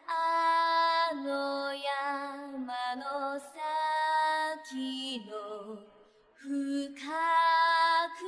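Background music: a woman's voice singing slow, long-held notes, with a short pause a little after the middle.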